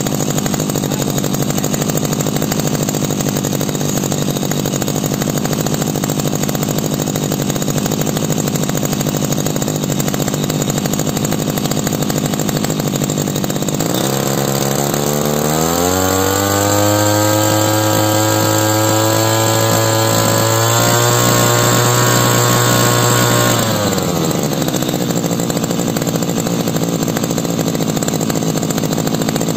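Tanaka SUM 328 SE II backpack brush cutter's two-stroke engine idling, then revved up about halfway through, held at high speed for several seconds and let drop back to idle.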